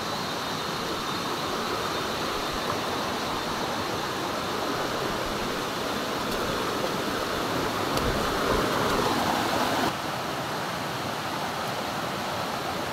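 River water rushing steadily, a constant hiss-like roar with no break. A somewhat louder rushing stretch lasts about two seconds past the middle and cuts off suddenly.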